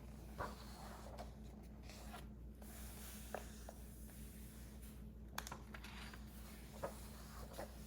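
A pen or pencil writing on a paper puzzle sheet: a handful of soft, scattered taps and scratches, over a faint steady low hum.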